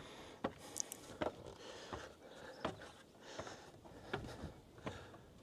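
Footsteps climbing steep wooden stairs: a series of light thuds, about one every second.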